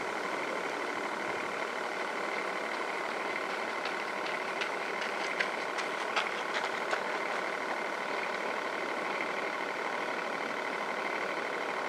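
Radio-controlled model coast guard boat running steadily on the water, a constant motor hum with a steady whine. A handful of short sharp ticks come about halfway through.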